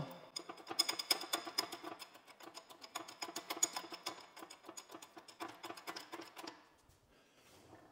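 Hand-pumped hydraulic engine hoist being jacked up to raise its boom: rapid metallic clicking and rattling from the pump handle and the hanging chain, stopping about a second before the end.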